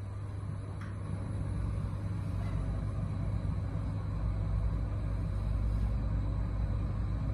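Hitachi passenger elevator travelling upward: a steady low hum and rumble inside the car that slowly grows louder as it climbs.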